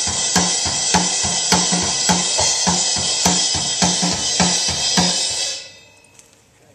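Acoustic drum kit played in a steady beat: kick, snare and hi-hat/cymbal wash, stopping abruptly about five and a half seconds in. It is a test of a freshly tuned snare with a blue damping gel pad on its head, which the producer thinks could be alright.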